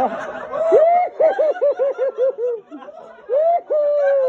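A man laughing in a high falsetto: a quick rising whoop, then a rapid run of about ten cackling syllables, then two drawn-out calls near the end, the last one sliding down in pitch.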